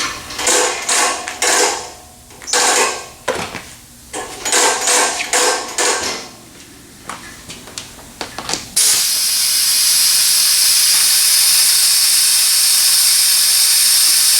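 Several seconds of ratcheting and clattering strokes, then about nine seconds in a loud, steady hiss of compressed air starts suddenly: an air-powered fluid evacuator running to suck fluid out of a TH350 automatic transmission.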